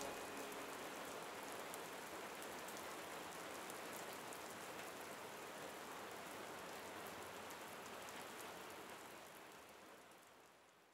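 Steady rain falling, an even hiss with fine drop taps, fading out near the end.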